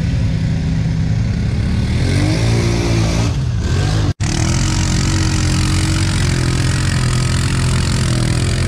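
ATV engines revving hard under load as the tyres spin and churn through deep mud. The engine pitch rises and falls with the throttle, and a brief dropout about four seconds in splices in a second machine running steadily.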